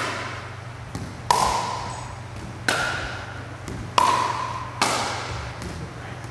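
Pickleball rally: five sharp pops of paddles hitting the plastic ball, about a second apart, each ringing briefly, with fainter taps between them.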